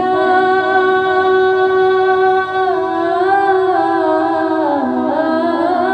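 Naat singing: one voice holds a long note steady for about two and a half seconds, then winds through wavering, ornamented turns of pitch.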